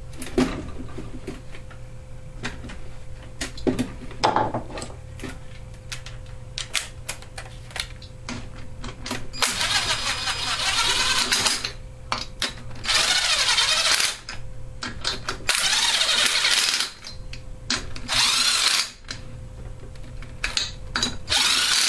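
Cylinder-head bolts of a small Tecumseh engine being tightened down with a tool: scattered clicks and knocks, then four bursts of rapid rasping tool noise, each lasting one to two seconds.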